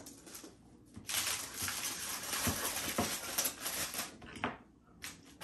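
A serving utensil scraping and rustling over a foil-lined sheet pan as food is lifted onto a plate, with two light clinks in the middle.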